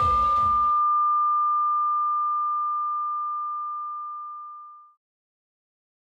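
Loud club music cuts off abruptly less than a second in, leaving a single pure steady tone that fades away over about four seconds: a simulated ringing in the ears, or tinnitus, of the kind left by loud club music.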